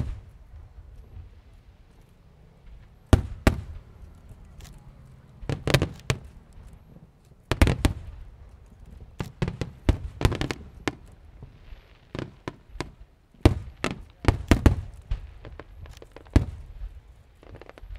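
Fireworks shells bursting overhead: sharp bangs, each followed by a low rumbling boom, coming in irregular clusters of two to four every couple of seconds.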